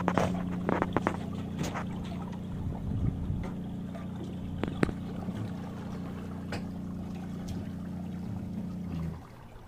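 Electric kayak trolling motor humming steadily at one speed, cutting off abruptly near the end. Water slaps and knocks against a kayak hull in the first couple of seconds, with a few more later.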